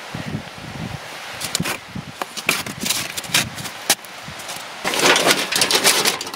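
Camp gear being handled: scattered light metallic clicks and taps, then, from about five seconds in, a dense crinkling as an aluminium foil windscreen is set up around a small steel wood stove.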